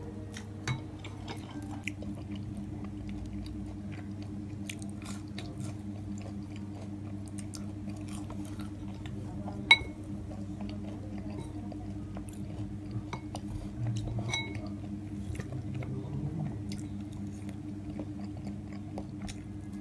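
Close-up eating sounds: chewing, with small clicks and a fork clinking against ceramic dishes, one sharp ringing clink about ten seconds in. A steady low hum runs underneath.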